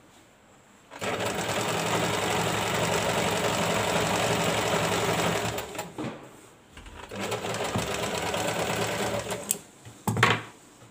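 Electric sewing machine stitching layered fabric strips together. It starts about a second in, runs steadily for nearly five seconds, stops briefly, then runs again for a couple of seconds. A short loud sound comes near the end.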